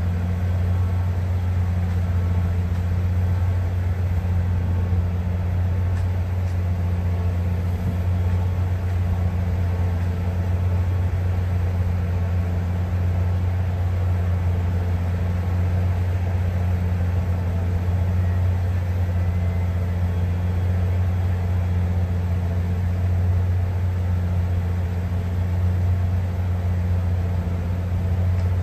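An engine idling: a steady, unchanging low hum.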